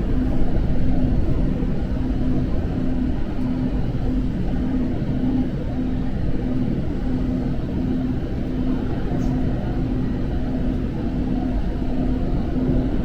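Passenger train running at speed, heard inside the carriage: a steady low rumble with a hum that pulses on and off in an even rhythm.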